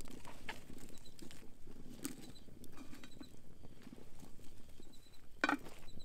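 Wood campfire crackling with scattered small pops, and a louder pop about five and a half seconds in.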